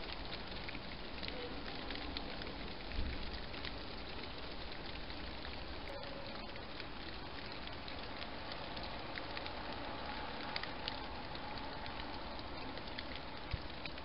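Light rain or drips pattering on leaves: a steady hiss dotted with many faint ticks. There are a couple of soft low thumps, about three seconds in and again near the end.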